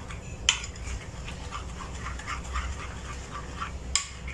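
Egg and flour batter beaten by hand in a ceramic bowl: a utensil scraping through the batter in a quick, even rhythm, with two sharper clinks against the bowl, one about half a second in and one near the end.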